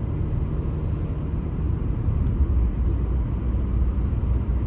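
Car interior rumble while driving: a steady low drone of engine and tyres on the road.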